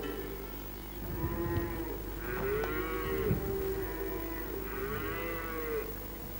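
Cows mooing: several long moos that rise and fall in pitch, the two loudest about two and a half and five seconds in.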